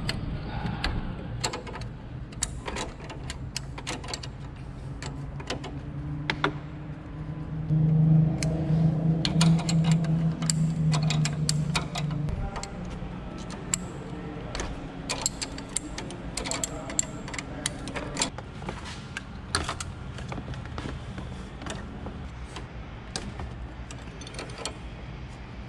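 Scattered metal clicks and taps from a wrench working the 10 mm brake line fittings on a car's ABS module. A steady low hum joins for about four seconds in the middle.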